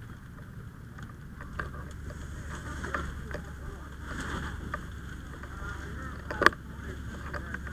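Steady low engine drone, with a few light clicks and one sharp knock about six and a half seconds in.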